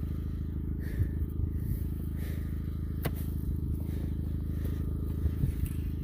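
Kubota RTV500 utility vehicle's engine idling with a steady low hum, with a couple of faint knocks about one and three seconds in from a steel T-post being pried in the dirt.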